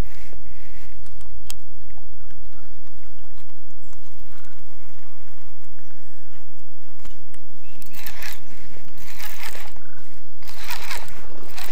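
Wind rumbling steadily on the microphone by the water, with a few loud rushing noise bursts in the last four seconds.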